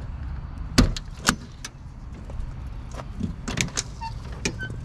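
Doors or latches on a parked truck being handled: a few sharp clicks and knocks, the loudest about a second in, over a steady low rumble.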